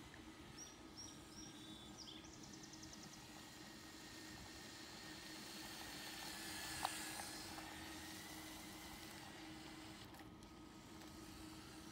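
Remote-control LEGO Technic car running on asphalt: a faint whine from its electric drive motors and tyre noise, growing louder as it passes close about seven seconds in, with a single click at that point.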